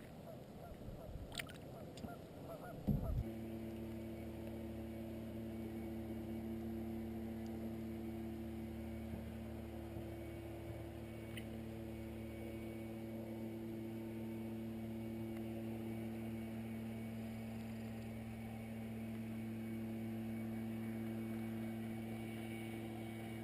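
Ducks on the water calling in honking quacks for the first few seconds, ending in a sharp knock. Then a steady drone of a few held low notes, an ambient music bed, sets in suddenly and runs on nearly unchanged.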